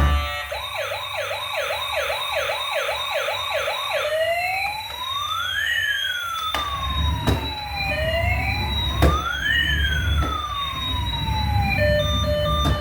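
Electronic siren of a toy emergency vehicle. For the first few seconds it is a fast yelp of about two to three sweeps a second, then it becomes a slow wail of two tones gliding up and down past each other. From about halfway a low rumble and a few sharp knocks come in.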